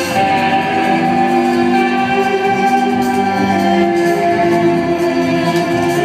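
Live band music played through a club's sound system, with long held notes that shift in pitch every second or so.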